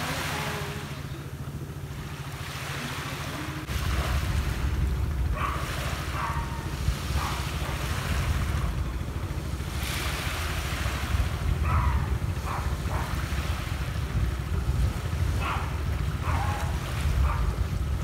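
Sea waves washing onto a sandy beach, with wind buffeting the microphone as a low rumble that grows stronger about four seconds in.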